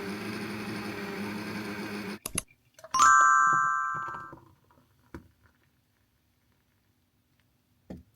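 A steady electric hum cuts off about two seconds in, followed by a click and then a single bright bell ding that rings and fades over about a second. A few light knocks follow.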